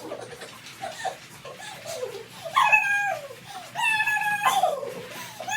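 A dog whining: a run of short high whines, then two longer, louder whines about halfway through that each hold a pitch and then slide down. It is the anxious, highly anticipatory dog whining while waiting to be released.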